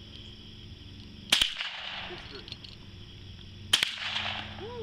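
Two shots from a Savage Model 64 semi-automatic .22 Long Rifle, about two and a half seconds apart, each followed by a short echo.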